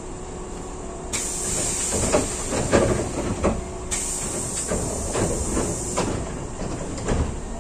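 Hankyu train's compressed air hissing in two spells, the first starting suddenly about a second in and the second stopping about six seconds in, with scattered knocks and clunks from the train.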